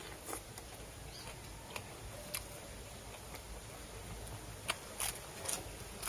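Scattered soft clicks and smacks of someone chewing and eating, about six short ones over a low steady rumble.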